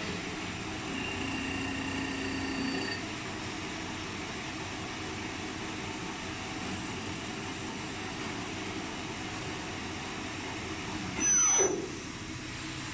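VLB 12i CNC machine tool running during a machining test: a steady machine hum with a motor whine over the first few seconds. About eleven seconds in, a brief, louder whine falls steeply in pitch.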